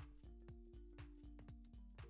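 Faint background music with a steady beat.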